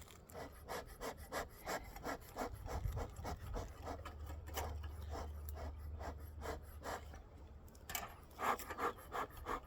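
Bee smoker's bellows pumped in quick, even strokes, about three puffs a second, trying to get smouldering fuel that won't catch to light.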